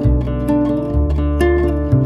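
Background music: a plucked string instrument playing a slow melody, a note about every half second, each ringing on and fading.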